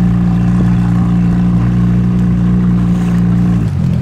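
Motorboat engine running at a steady pitch, its note dropping abruptly near the end as the throttle is eased.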